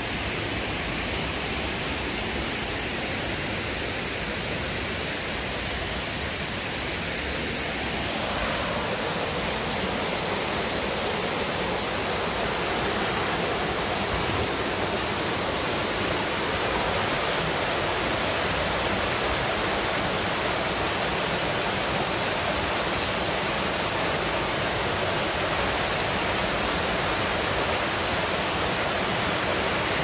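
Water rushing and splashing down a stepped cascade of rough stone blocks in a small stream, a steady rush that grows louder and fuller about eight seconds in.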